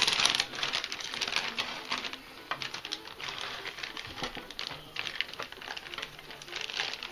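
Plastic Ziploc bag crinkling and rustling as hands open it and reach in for the marinated roast, in quick irregular crackles that are loudest at the start.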